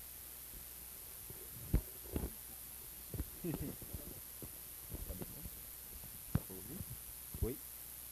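Steady low electrical hum from the hall's sound system, broken by several short soft thumps and knocks, with faint voices in between.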